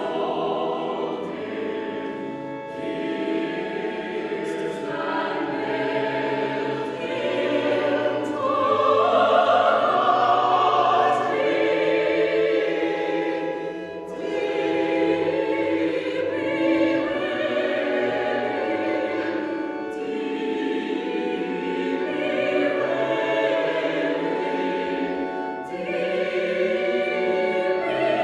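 A choir singing in sustained phrases, with brief breaths between phrases.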